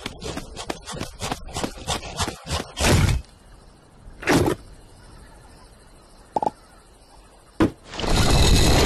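Cartoon slapstick sound effects: a quick run of scrabbling, scuffing footsteps, two loud hits, a short squeak and a sharp click, then a loud, steady rush of noise near the end.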